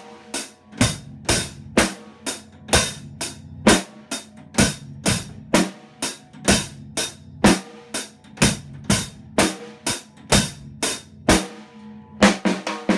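Acoustic drum kit played in a plain, slow rock beat: bass drum and snare alternating at about two strokes a second, closing with a quick fill of several fast hits near the end.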